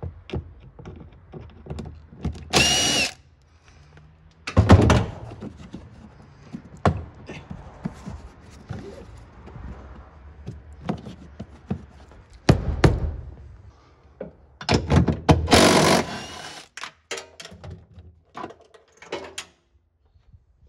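Cordless drill running briefly twice with a steady whine, undoing bolts in a car's interior trim. Between the runs come knocks and clunks of plastic trim panels and loose parts being pulled and handled.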